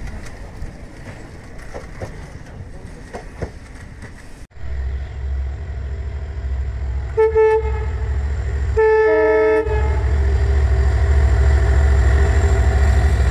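Diesel freight locomotive approaching with a steady low engine rumble. It sounds its multi-tone horn twice, a short blast and then a longer one about a second and a half later. Before that the sound is quieter, with scattered clicks.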